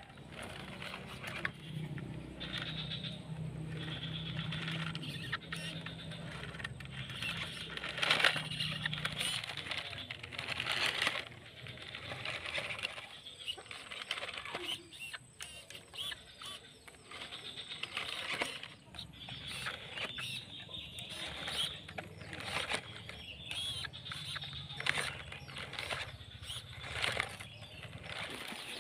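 Small RC pickup truck driving over dirt: its electric motor and gearbox whir steadily while the tyres crackle over soil, twigs and dry leaves. The whir is clear for the first third and again near the end.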